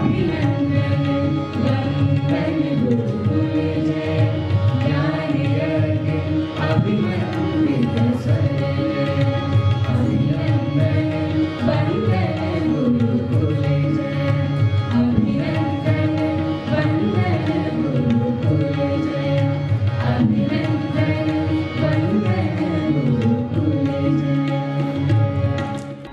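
Group of male and female singers performing an Indian song together, accompanied by tabla and harmonium. The music dies away just before the end.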